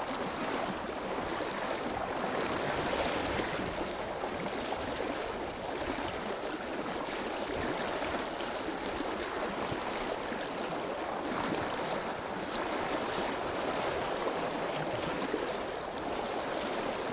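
Shallow river running steadily, its current rushing and breaking around a wader's legs.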